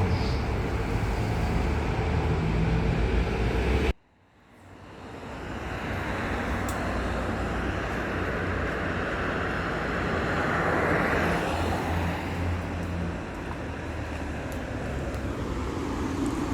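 Engine and road noise of a 2017 Hyundai New Super Aero City natural-gas city bus, heard from inside the cabin while it drives. The sound cuts out abruptly about four seconds in, then builds back up and runs on steadily.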